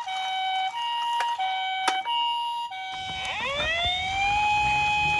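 Toy vehicle's electronic siren: a two-tone hi-lo ambulance siren alternating about every 0.7 s, with a click near the middle. About three seconds in, a wailing siren rises in pitch and holds, with a low rumble underneath.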